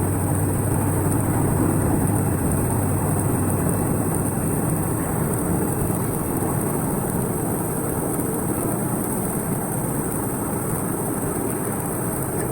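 Light pole closing-and-welding machine running: a steady, even mechanical noise with no distinct knocks or rhythm.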